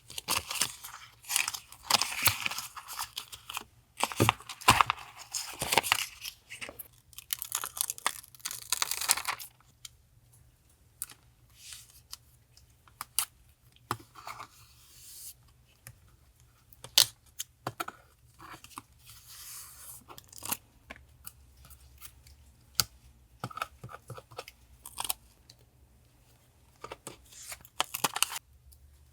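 Paper being handled and torn for a journal collage: a dense run of rustling and tearing for the first nine seconds or so, then scattered light taps and brief rustles of paper.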